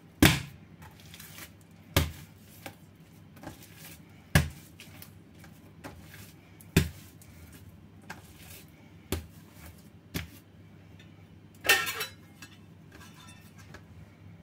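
Sharp knocks and clatters of kitchen tools against a stone worktop, about one every two seconds, while a large mass of bread dough is turned out and worked by hand. A longer, rattling clatter comes near the end.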